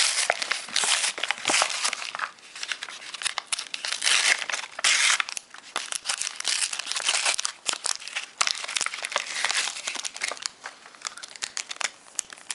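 Foil wrapper of a Pokémon booster pack being torn open and crinkled by hand: irregular crackling and tearing, with brief pauses.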